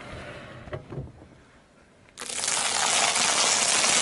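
Car tyre rolling onto a pile of popcorn, crushing it: a dense, loud crunching crackle that starts about two seconds in and keeps going. Before it, a couple of faint knocks.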